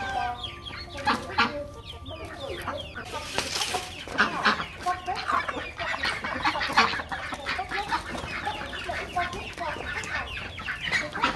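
A flock of chickens clucking and calling over one another as they crowd round to be fed, with a short rush of noise about three seconds in.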